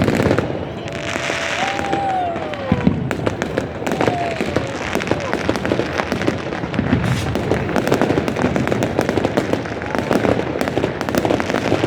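Many fireworks and firecrackers going off at once: a dense, continuous crackle of bangs and pops.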